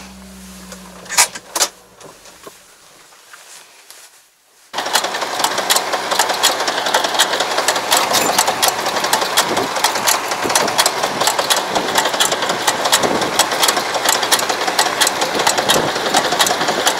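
A vehicle engine hums steadily inside the cab, with a couple of sharp clicks. About five seconds in it cuts abruptly to a loud, dense, fast-ticking clatter from a semi-crawler farm tractor running close by as it pulls a field implement with a roller.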